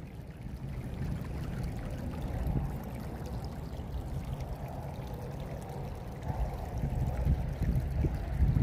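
Storm runoff from a buried yard drain, welling up through a submerged grate and running down a stone-lined open drain channel: a steady wash of pouring, running water, a little louder near the end. The gravity drainage system is discharging at full flow after a flash flood.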